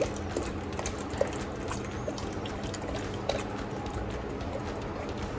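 A thin stream of flour-and-water slurry trickling into a pot of nihari gravy while a wooden spoon stirs it, with light scattered clicks. The slurry is poured slowly with constant stirring so that it thickens the gravy without forming lumps.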